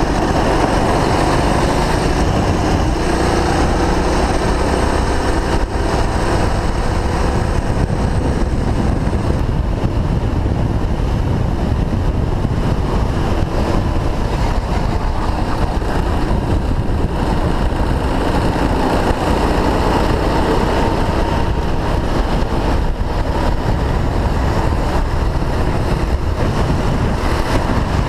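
Go-kart engine heard onboard at racing speed, its pitch rising on the throttle and falling off for the corners several times over, with wind rushing across the microphone.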